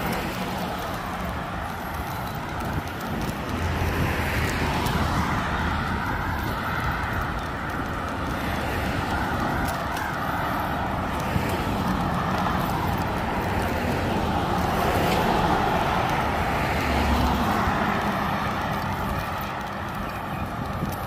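Road traffic: a steady wash of passing cars' engines and tyres, with no single event standing out.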